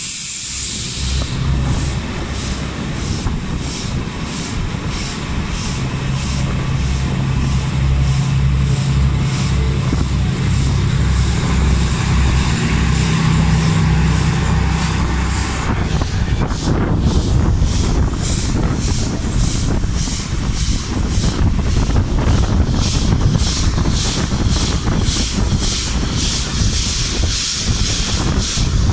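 A VT 98 Uerdinger railbus's underfloor diesel engine runs close alongside with a low, pulsing drone, over the even, rapid exhaust beats and hiss of the S3/6 steam locomotive working at speed. About sixteen seconds in the diesel drone drops away, leaving the steam locomotive's beats and the rush of the moving train.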